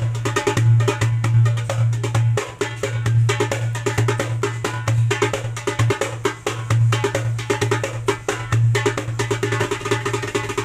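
A 9-inch darbuka with an Emin mika head played in a fast, continuous rhythm of rapid sharp strokes, with a deep ringing bass note sounding under them.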